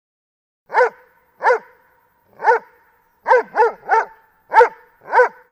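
Doberman pinscher barking: eight short barks at uneven spacing, with a quick run of three in the middle.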